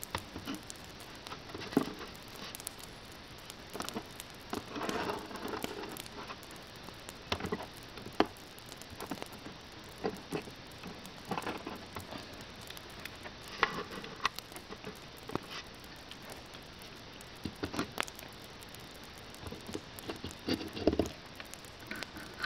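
Scattered small clicks and taps with brief rustling over a steady hiss: the handling sounds of a hand moving close to the dollhouse and camera. Two longer patches of rustling come about five seconds in and near the end.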